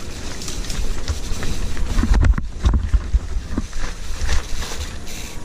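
Wind buffeting the microphone with a low rumble, heaviest about two to three seconds in, along with scattered knocks and rattles from a bumpy ride.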